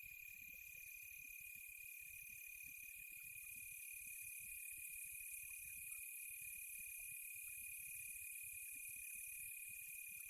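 Faint, steady chorus of crickets and other insects trilling without a break, part of a rural night ambience.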